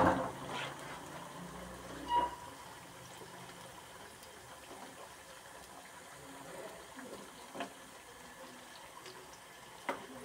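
Potato fries deep-frying in hot oil in a wok: a steady sizzle, with a few clinks of a metal slotted spatula against the pan as they are stirred.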